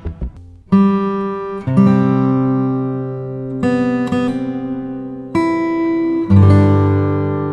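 Background music: acoustic guitar strumming chords, one strum every second or two, each left to ring.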